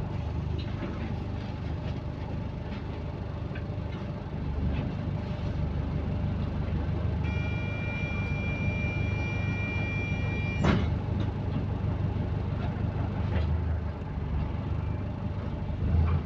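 Bus engine running with a steady low rumble, heard from inside the bus, which has an exhaust leak. About halfway through, a steady high electronic tone sounds for about three seconds and ends with a sharp click.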